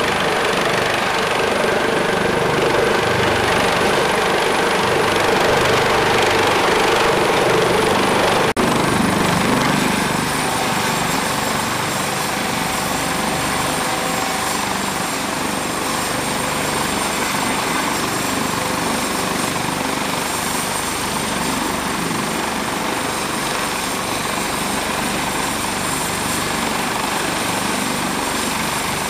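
Helicopter rotor and turbine noise, louder while it hovers in to land on the ship's flight deck. About eight seconds in it drops off sharply to a steadier, slightly quieter run with a high turbine whine, the rotors still turning with the helicopter on deck.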